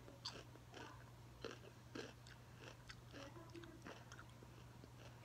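A mouthful of raw hot pepper being chewed, with faint crisp crunches about twice a second.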